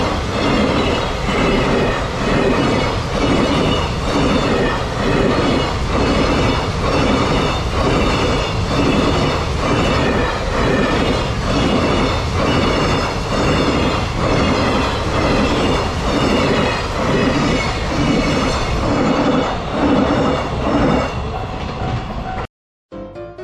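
Freight train wagons rolling past, their wheels clattering over the rail joints in a steady rhythm of about one and a half beats a second. The sound cuts off suddenly near the end.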